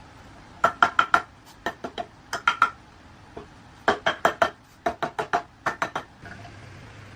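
Metal striking metal: about two dozen sharp, ringing taps in quick runs of three to five, as when tools or engine parts are knocked together during restoration work, stopping about six seconds in.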